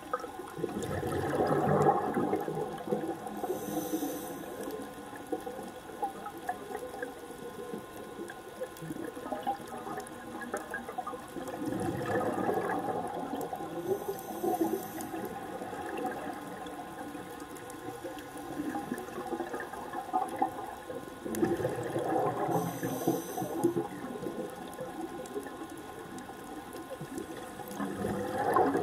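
Scuba diver breathing through a regulator, heard underwater: a rush of exhaled bubbles about every nine to ten seconds, four times, each breath cycle with a short high hiss of inhalation.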